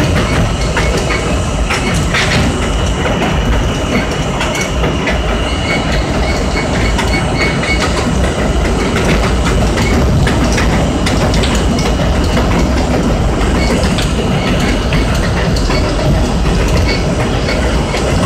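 R32 subway car running along elevated track, heard from inside the lead car: a steady loud rumble of wheels and structure with clacks from the rail joints.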